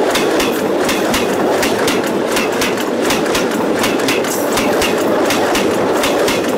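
Steel wheels of railway wagons rolling over the rail just overhead, heard from rail level: a steady, loud rumble broken by a quick, uneven run of sharp clacks as the wheels cross a bolted rail joint.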